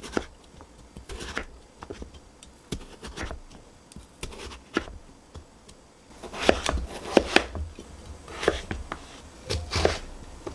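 Kitchen knife cutting a Korean radish on a wooden cutting board: irregular slicing and chopping, with a run of louder knocks of the blade on the board in the second half.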